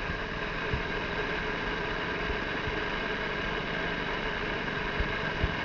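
Lawn mower engine running steadily at idle, with no revving, and a few brief low thumps.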